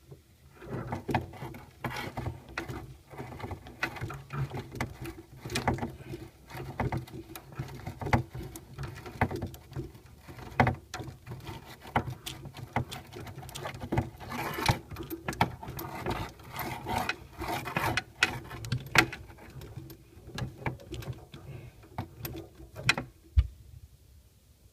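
Plumbing noise: rapid, irregular tapping and clicking over a steady low hum, starting about a second in and stopping shortly before the end.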